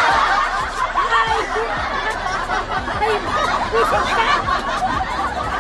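Several women laughing hard together, with loud, continuous, overlapping laughter.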